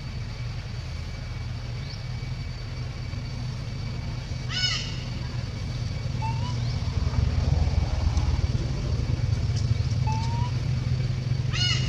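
Low engine rumble of a motor vehicle, growing louder from about halfway through, over a steady high insect-like drone. Two short, high chirps come a little before halfway and again near the end.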